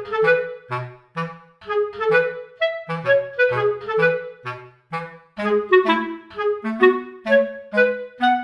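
Background music: a bouncy tune of short, separate notes over a bass line in a steady rhythm.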